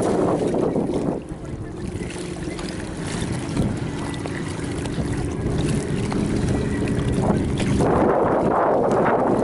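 Wind buffeting the microphone, easing off about a second in and picking up again near the end; in the calmer middle stretch a faint steady hum can be heard.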